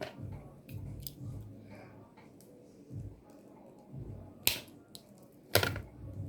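Two sharp snips of a cutting tool on network cable wires, about a second apart near the end, over soft handling noise of the cable and tools.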